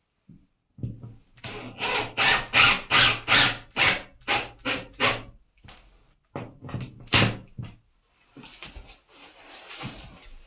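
Cordless drill driving a screw through a metal towel-bar bracket into a sheetrock anchor in short repeated bursts, about two or three a second, for roughly four seconds, then a few more short bursts about two seconds later.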